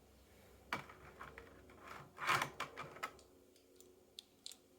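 Hands handling a die-cast toy car and its plastic packaging: a sharp click about a second in, a short rustling crinkle a little after two seconds, then a few faint ticks.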